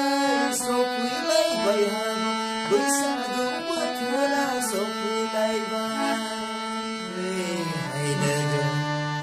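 A man singing to his own harmonium, the harmonium's reeds holding steady chords under his voice. The harmonium's chords shift to lower notes near the end.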